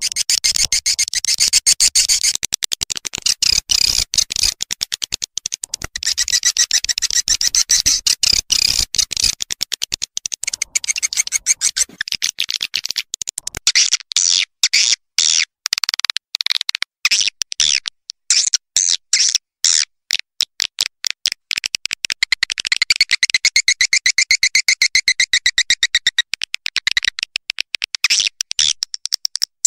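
Swiftlet calls: a dense, continuous run of rapid high-pitched chirps and twittering, many per second, of the kind played as a lure to draw edible-nest swiftlets into a swiftlet house.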